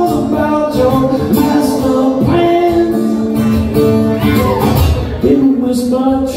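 An acoustic guitar strummed steadily, with a man singing along over it, performed live into a vocal mic.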